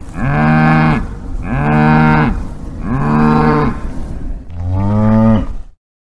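Cow mooing four times: three similar moos that rise and fall in pitch, then a deeper, longer moo that cuts off suddenly near the end.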